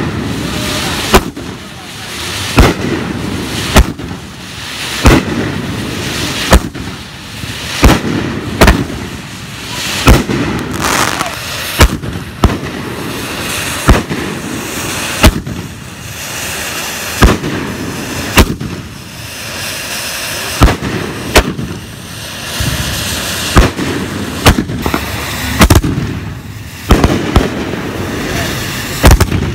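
Aerial fireworks bursting overhead: a run of sharp bangs, roughly one every second and a half, over a steady crackle and hiss of burning stars.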